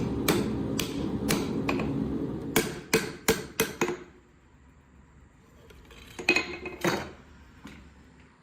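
Hammer blows on hot steel at an anvil, a run of evenly paced strikes about three a second over a steady hum, ending about four seconds in. A few lighter metal clinks follow near the end.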